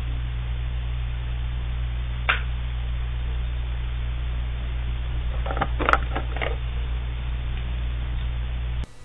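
Steady low electrical hum with hiss in the surveillance camera's recording of the hotel room. A single short click comes about two seconds in, and a few brief faint sounds come just past the middle.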